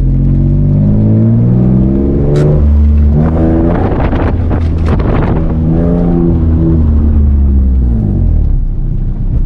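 Nissan 350Z's 3.5-litre V6 revving in first gear during an attempted handbrake drift entry, its pitch climbing and dropping several times, with a sharp click about two and a half seconds in.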